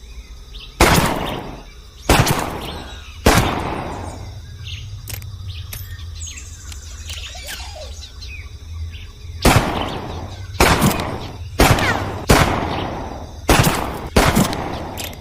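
M1917 .45 ACP revolver fired nine times, each shot ringing off in about a second of echo: three shots about a second apart, a pause of about six seconds, then six more in quicker succession. Birds chirp faintly during the pause.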